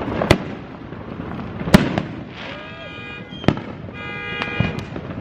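Fireworks going off: four sharp bangs a second or more apart, the loudest about two seconds in. Between the later bangs, a held pitched tone sounds twice, around three and four seconds in.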